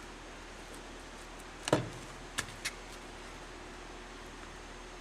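One sharp thump followed by two lighter clicks about a second later, from the vent window frame and rubber weatherstrip being handled as the weatherstrip is pressed into the frame's groove. Otherwise only a steady low hiss.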